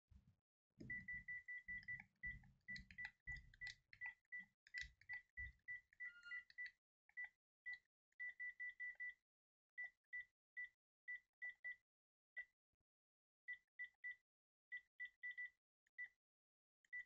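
Key-press beeps from a Panasonic KX-TGJ322 cordless phone handset, one short, high beep per button press as its menus are stepped through. The beeps come in quick runs at first, then spaced out. Low handling rumble from the handset being held runs under the first few seconds.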